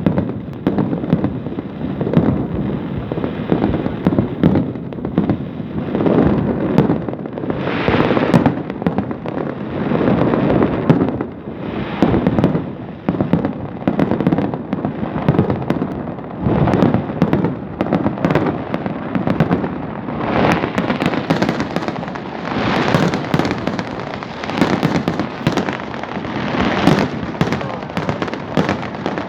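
A fireworks display with a continuous barrage of overlapping bangs and crackling, growing denser in the second half.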